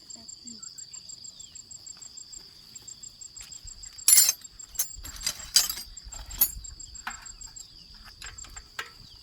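Field insects, crickets among them, trilling steadily with a rapid pulsing chirp above. About four seconds in comes a short run of sharp clinks and knocks, loudest at the start, like tools or metal parts being handled.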